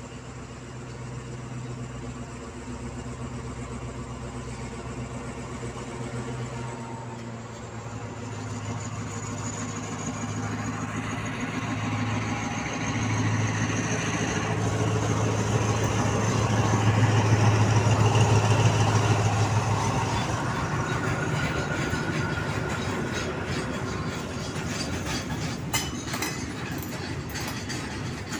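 Diesel locomotive hauling a tank-car freight train: its engine hum grows louder as it approaches, is loudest as it passes at about two-thirds of the way through, then fades. Near the end the tank wagons roll by with clicks of wheels over rail joints.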